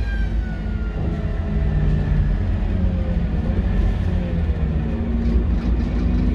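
Scania K230UB single-deck bus on the move: a steady low engine rumble with a drivetrain whine from the turbo and differential that slowly falls in pitch as the bus slows.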